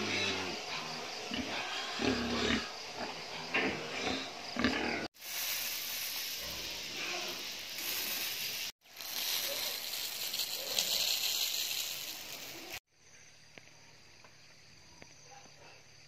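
Pigs grunting at a feeding trough for the first five seconds. After that comes a steady hiss, which grows quieter after about 13 seconds.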